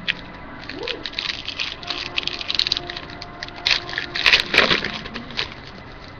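Hockey card pack wrapper crinkling and tearing open by hand, a run of irregular crackles that is loudest about four seconds in.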